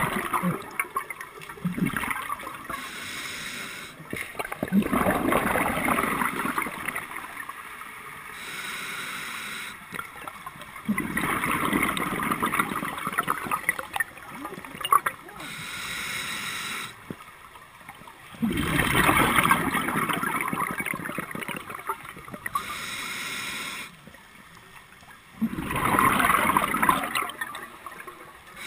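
Muffled underwater sound through a GoPro housing: a diver's breathing, with a rush of exhaled bubbles about every seven seconds and a fainter hiss in between.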